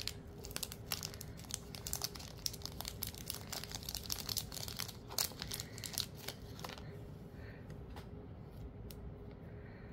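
Crinkling and crackling of Play-Doh Air Clay being squeezed and pulled apart in the hands, a rapid scatter of small crackles that thins out in the last few seconds.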